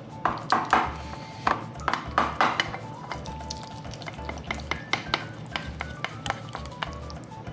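Silicone spatula stirring and scraping miso paste with mirin around a small stainless steel bowl, irregular scrapes and taps against the metal side, over background music.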